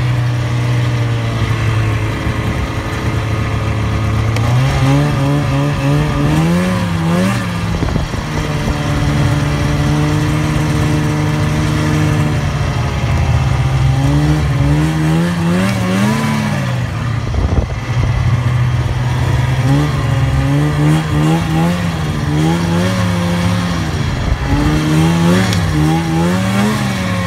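Snowmobile engine running under way, its pitch repeatedly rising and falling as the throttle is opened and eased off.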